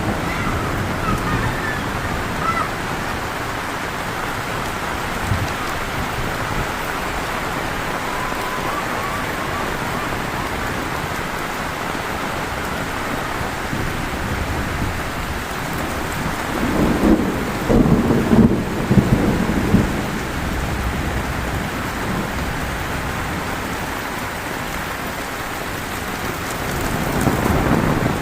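Heavy rain falling steadily, with a low rumble of thunder lasting a few seconds a little past halfway through.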